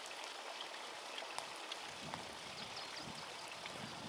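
Faint, steady rush of running water, with small scattered clicks.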